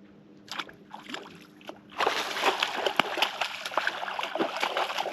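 Water splashing as a hooked blue catfish thrashes at the surface beside the boat. A few light splashes come first, then a dense flurry of splashing starts about two seconds in and keeps going.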